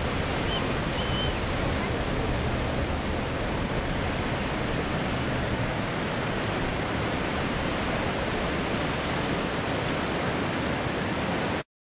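Steady rushing noise of strong wind and surf, with the distant low drone of a P-51D Mustang's Packard Merlin V-12 engine faintly underneath and fading out about halfway through. The sound cuts off suddenly near the end.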